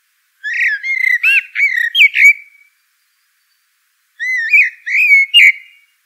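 A songbird singing two short phrases of quick, slurred whistled notes, each about two seconds long, with a pause of about a second and a half between them.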